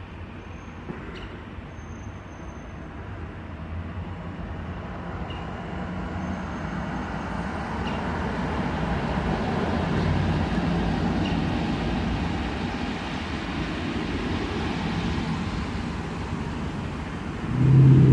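Road traffic from a nearby street: a steady hum of passing cars that swells toward the middle. Near the end a much louder, low vehicle engine starts up close by.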